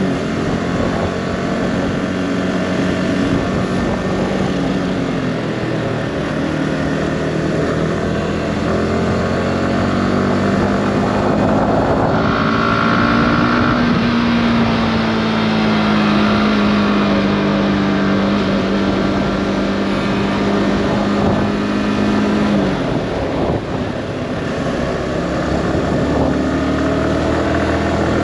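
Sport motorcycle engine running under way as the bike accelerates along the road, its pitch rising and falling with throttle and gear changes. The engine note drops sharply once, about two-thirds of the way through.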